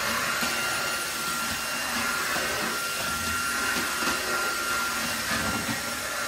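Halostar cordless stick vacuum running steadily, a constant rush of suction with a thin high motor whine, as its floor head is pushed back and forth over tile.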